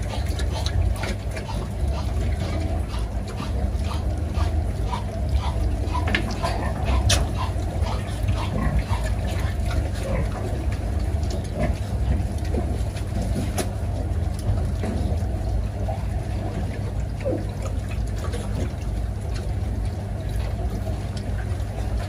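A litter of piglets grunting, snuffling and giving short squeaks, with their hooves clicking on the slatted floor, over a steady low rumble that is the loudest sound throughout.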